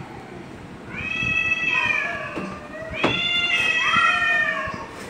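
Two cats yowling at each other in a fight standoff: long, drawn-out, wavering yowls that rise and fall in pitch, one starting about a second in and a longer one about three seconds in, with the two voices overlapping.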